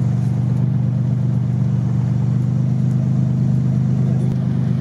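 Off-road vehicle's engine idling steadily, an even low hum that holds the same pitch throughout.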